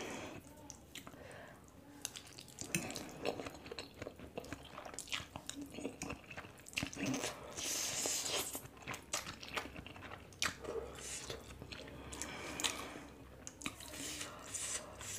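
Close-miked mouth sounds of a person eating spicy Korean instant noodles: wet chewing and lip smacks, with a noodle slurp from a forkful about halfway through.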